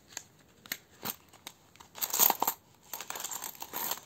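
Clear plastic sleeves of a cash-envelope binder crinkling and rustling as they are handled. A few light clicks come in the first second or so, then a louder crinkle about two seconds in, and steady rustling after that.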